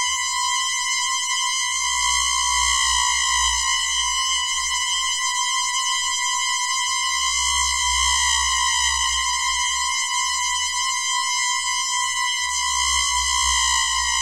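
A steady electronic tone with a rich stack of overtones, wavering slowly in pitch, over a low rumble: a synthesized sci-fi style effect.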